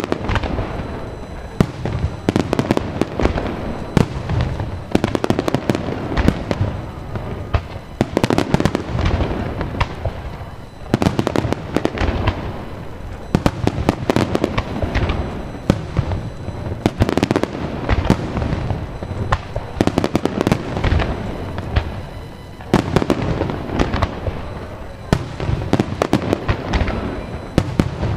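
Fireworks finale barrage: many shells bursting in quick succession, with booms and dense crackling that come in waves every few seconds.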